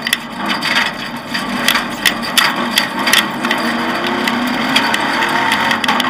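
Offroad rally car driven hard on a gravel track, heard from inside the cabin: the engine runs under load beneath a constant clatter of sharp knocks and rattles as the car jolts over the rough surface.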